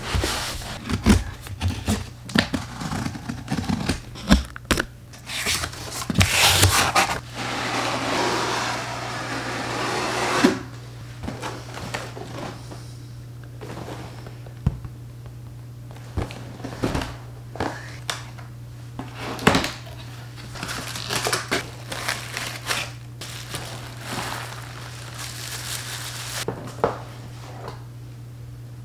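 Unboxing handling noise: cardboard flaps, tape and crinkly packing plastic rustled and torn as a shipping box is opened and the boxed blender is lifted out, with scattered knocks and clicks and a longer rustling, tearing stretch a third of the way in.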